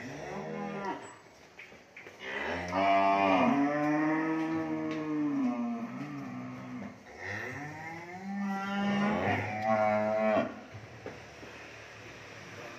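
Cattle mooing: a run of long, drawn-out moos, the longest lasting about four seconds, with a quieter stretch near the end.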